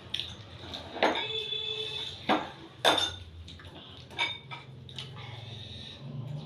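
Eating utensils clinking and knocking against dishes during a meal. There are several sharp clinks, loudest around one, two and three seconds in, and one of them rings briefly.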